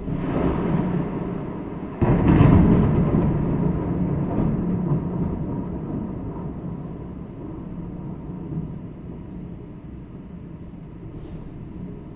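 Thunder: a sudden clap, a louder second crack about two seconds in, then a long low rumble that slowly fades away.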